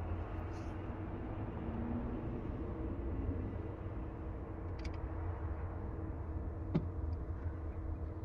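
Detroit Diesel Series 60 inline-six diesel in an MCI coach running steadily with a low rumble, misfiring on only three of its six cylinders because of a faulty external engine wiring harness. A couple of faint clicks can be heard partway through.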